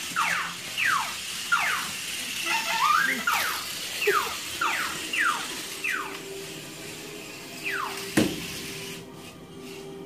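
Parrot giving short, high squeaky calls that fall sharply in pitch, about two a second, with a brief run of rising chirps partway through. The calls stop shortly before a single sharp knock near the end.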